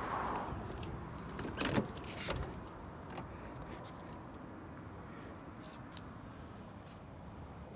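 Steady outdoor background noise with a few light knocks and clicks, the loudest a pair of knocks a little under two seconds and about two and a half seconds in.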